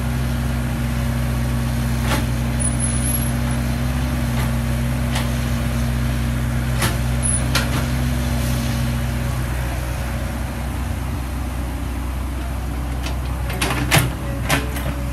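Old Caterpillar tracked excavator's diesel engine running steadily as the machine works, with occasional sharp metal clanks from the boom and bucket and a quick cluster of knocks near the end.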